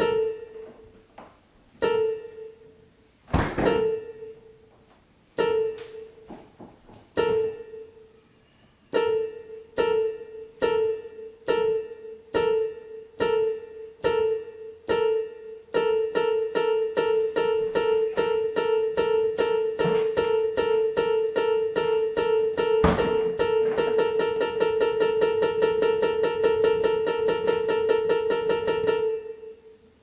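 Film score: a single piano note struck over and over, slowly at first, then quickening into a rapid insistent pulse that cuts off abruptly near the end. Two heavy thuds land, one about three seconds in and one about twenty-three seconds in.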